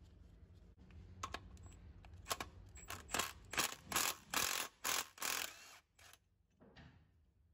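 Metal parts clinking and rattling under hand work on a Caterpillar C12 engine's overhead jake brake and rocker gear: about ten separate clinks and short rattles, busiest in the middle, then stopping.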